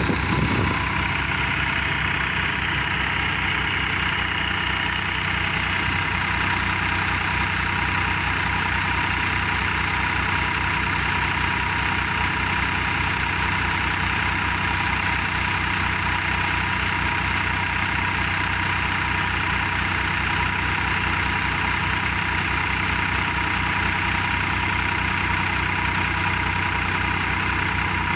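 Massey Ferguson 245 DI tractor's three-cylinder diesel engine running steadily under load, driving a coriander thresher. The thresher adds a constant whirring hiss as bundles of dried coriander are fed through it.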